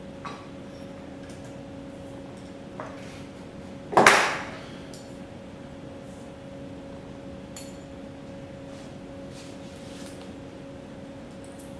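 Metal tools and parts handled on a workbench: faint ticks and taps, with one loud metallic clank about four seconds in that rings briefly, over a steady electrical hum.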